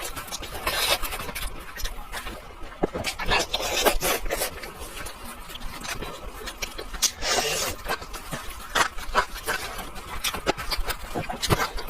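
Close-up eating sounds of kiln-roasted chicken: irregular chewing, smacking and the rustle and crackle of tearing the meat by hand.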